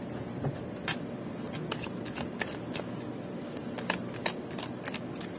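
Oracle card deck being shuffled by hand: soft sliding of the cards against each other, broken by irregular light clicks and snaps of the card edges.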